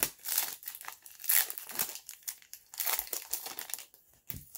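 Foil wrapper of a 2020 Bowman 1st Edition baseball card pack crinkling and tearing as it is ripped open and the cards are pulled out, in two main spells of crackling.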